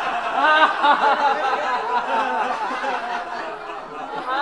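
A group of people laughing together, many voices overlapping at once, easing a little near the end. This is the deliberate, reasonless laughter of a laughter yoga session.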